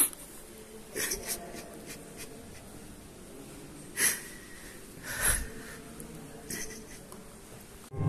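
A few short breaths or puffs of air close to the microphone, about six spread over several seconds, over quiet church room tone. Music begins right at the end.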